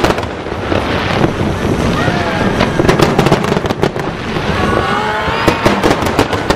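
Aerial fireworks display: shells bursting with many sharp bangs and crackles over a steady low rumble, with a dense rapid run of bangs about five and a half seconds in.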